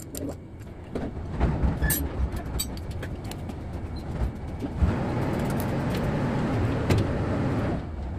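Workshop noise: scattered light metal clicks of tools and parts, then from about halfway in a steady mechanical rumble that lasts about three seconds and cuts off suddenly near the end.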